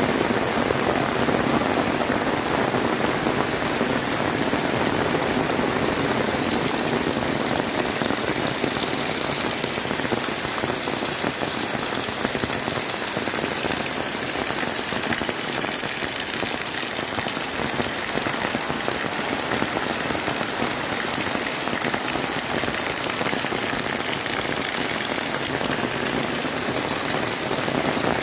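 Heavy rain pouring steadily: an even, dense hiss of drops hitting surfaces.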